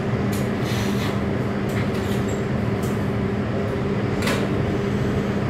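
A steady mechanical hum, a constant low drone over even background noise, with a few short clicks scattered through it.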